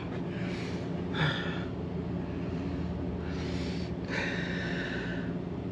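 A man breathing audibly through his nose and mouth between bites of food, several short noisy breaths, the last one longer, over a steady low hum.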